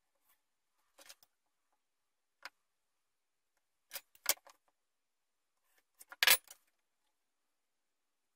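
Metal measuring tools handled on a wooden workbench: a few light clicks, then sharper clacks about four seconds in and again, loudest, about six seconds in, as an aluminium rafter square and a protractor are moved and set down.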